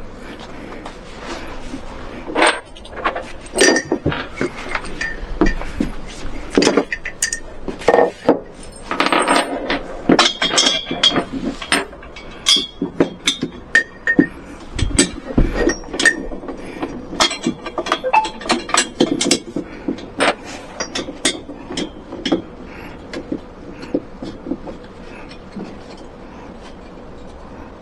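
Irregular clinks and knocks of small hard objects being handled, coming thick and fast through most of the stretch and thinning out near the end.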